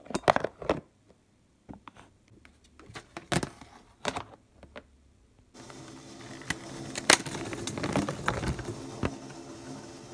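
Sharp clicks and rattles of plastic fruit containers being handled, then blueberries tipped from a plastic clamshell into a metal colander, pattering and ticking against the metal over a steady hiss that starts about halfway through.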